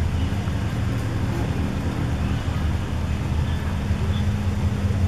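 A steady low mechanical hum with a faint held drone, unchanging throughout.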